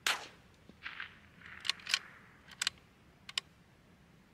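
A custom RimX bolt-action .22 LR rifle fires one shot, then a run of short, sharp clicks over the next few seconds as the bolt is worked to chamber the next round.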